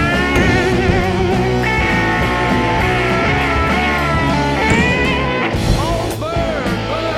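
Background rock music with electric guitar playing a wavering, bending melody over a steady bass and drum beat.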